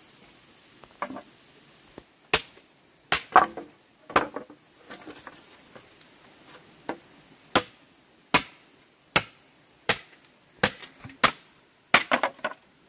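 Machete chopping a green bamboo pole: a series of sharp knocks starting about two seconds in, roughly one every three-quarters of a second, with a quick cluster of blows near the end.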